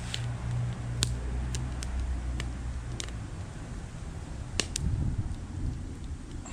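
Small wood fire in an aluminum-can stove crackling, with several sharp pops at irregular intervals, over a low rumble of wind on the microphone.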